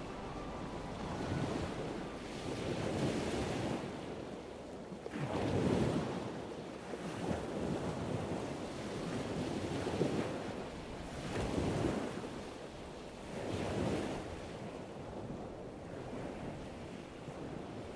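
Small sea waves breaking and washing up a sandy beach, the surf rising and falling every few seconds, with wind buffeting the microphone.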